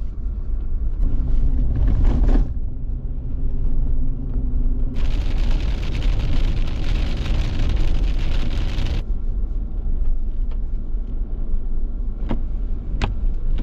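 A car running, with a steady low engine and road rumble. About five seconds in, a loud hiss cuts in and stops abruptly some four seconds later; two sharp clicks come near the end.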